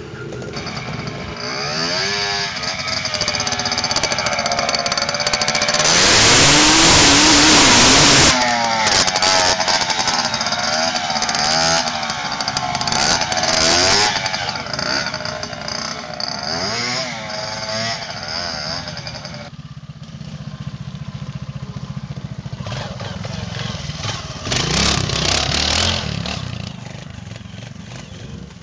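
Classic trials motorcycle engine revving in repeated throttle blips as the bike climbs over rocks. The loudest part is a harsh burst about six seconds in that lasts about two seconds, and there is another surge near the end.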